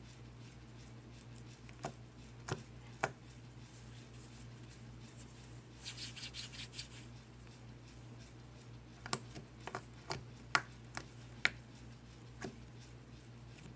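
Hands working slime, with scattered sharp clicking pops and a short burst of rapid crackling about six seconds in.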